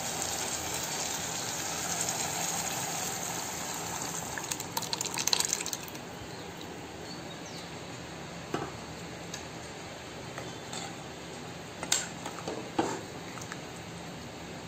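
Boiled chana dal being poured into a kadai of mutton masala over a steady hiss, splashing loudest about five seconds in. A slotted metal spoon then stirs the dal, knocking against the pan a few times.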